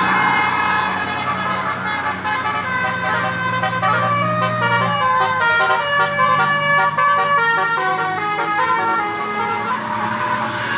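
Bus telolet Basuri musical air horn playing a tune of quick stepped notes, over a steady low drone.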